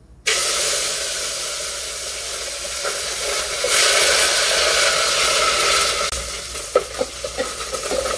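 Ginger-garlic paste frying in hot oil in a pan: a steady sizzle that starts suddenly and grows louder about halfway through. A spoon stirring the pan knocks against it a few times near the end.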